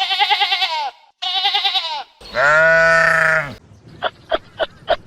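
Animal bleating: two short quavering bleats, then a longer, louder call that drops in pitch at the end. From about four seconds in, a run of short sharp chirps, about three a second.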